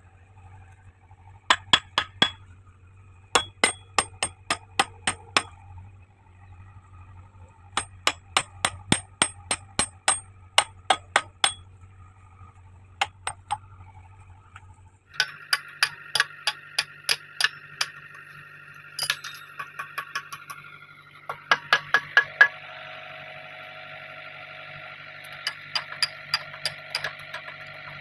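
Metal-on-metal hammer strikes on the steel bucket pins of a JCB 3DX backhoe loader, in quick runs of several blows about four a second with pauses between. The pins are being driven in or out to change the bucket.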